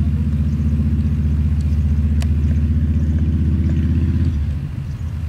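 A motor engine running steadily at idle with a low hum, which drops off about four seconds in. A single sharp click about two seconds in.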